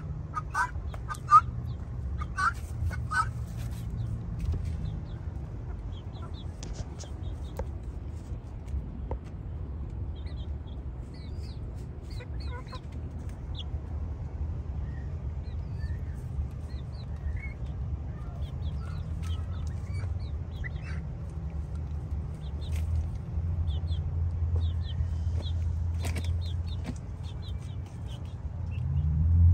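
Chickens clucking, a few louder clucks in the first three seconds, then scattered faint, short high chirps, over a low steady rumble.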